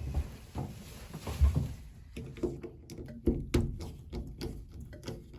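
Knocks and clicks of a bathtub faucet knob being handled and worked off its stem, with one louder thump about a second and a half in and a quick run of sharp ticks after it.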